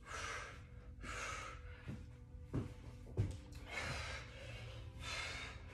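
A woman breathing hard in short hissy bursts about once a second while doing resistance-band squats and jumps, with a couple of foot thuds in the middle and faint music underneath.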